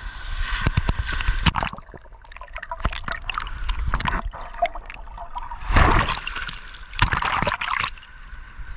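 Shallow surf water sloshing and gurgling against a camera dipped in and out of the water, muffled while it is under, with two louder splashes in the second half.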